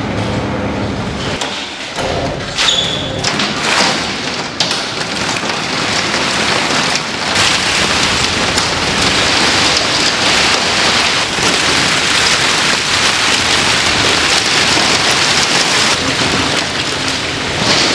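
A steady rush of falling or spraying water, with a few sharp knocks in the first few seconds and growing fuller and steadier from about seven seconds in.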